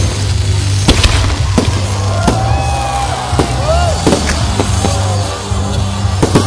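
Fireworks going off over loud music with a heavy steady bass: a string of sharp bangs and crackles, with a few whistling glides in the middle.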